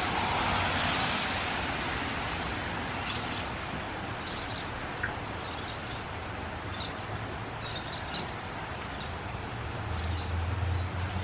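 Steady outdoor background noise with scattered faint bird chirps.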